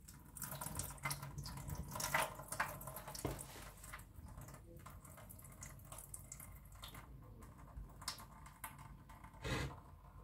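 Water trickling and dripping faintly from soaked beans and a wet hand into a stainless steel sink, with a few small splashes and taps, one louder near the end.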